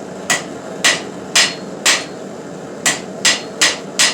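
Hand hammer striking steel on an anvil, straightening the forged piece. Eight sharp, ringing blows come about two a second, with a pause of about a second midway.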